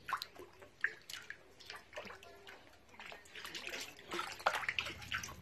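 Many frogs splashing as they jump and crowd in shallow water in a concrete tank. Irregular splashes and drips come throughout, busiest about two thirds of the way in.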